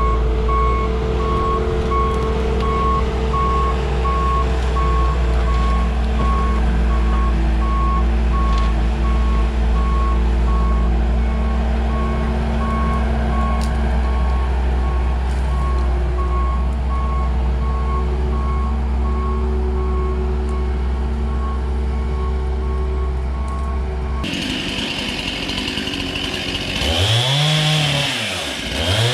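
Skid steer engine running steadily while its reversing alarm beeps in a fast, even pulse. About 24 seconds in it cuts abruptly to a chainsaw, which is revved up and let back down twice near the end.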